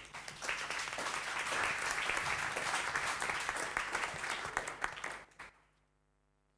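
Audience applauding for about five seconds, then stopping fairly abruptly near the end.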